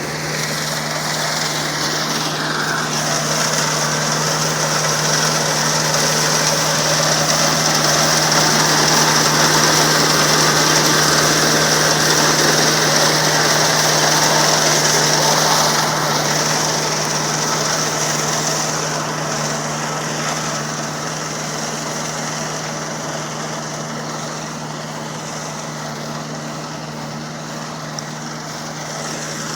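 Kubota R1-301 combine harvester running steadily, a constant engine hum under a high mechanical whine. It grows a little louder in the middle and eases somewhat toward the end.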